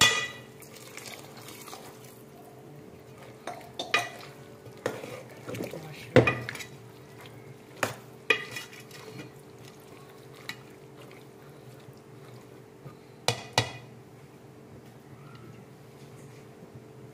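A metal ladle stirring black-eyed peas in water in an aluminium pot, with a handful of sharp knocks as it strikes the pot's side, over a steady low hum. A steel glass of water is poured in at the start.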